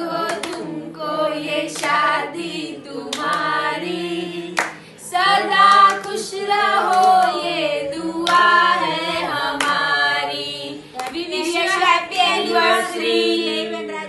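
A small family group singing a song together, with slow, regular hand claps keeping time.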